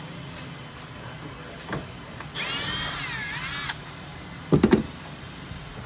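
Cordless drill-driver spinning for about a second and a half, backing a screw out of the seat base; its whine dips in pitch and recovers as it takes the load. About a second later comes a quick cluster of loud knocks.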